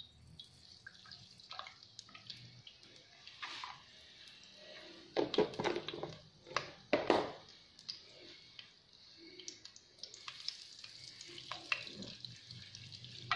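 A spoonful of margarine melting and sizzling faintly in hot oil in a glazed clay tagine pot, with a metal spoon scraping and knocking against the pot a few times near the middle.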